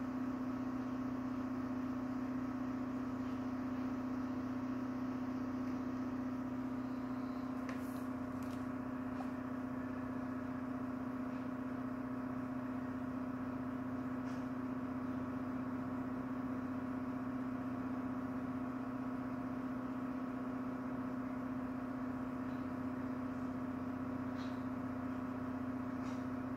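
Steady hum of a machine or appliance, with one strong low tone, unchanging in pitch and level. A few faint clicks sound over it.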